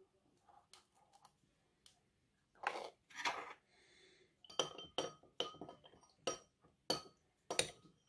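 Metal teaspoon stirring thickener powder into wine in a wine glass, clinking against the glass. After a couple of soft scuffs near three seconds in, sharp ringing clinks come about twice a second from about four and a half seconds in.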